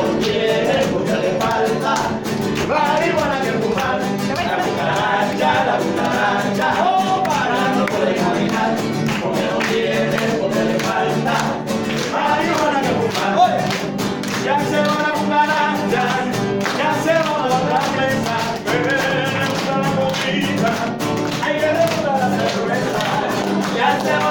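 Live mariachi band playing: strummed guitars with voices singing.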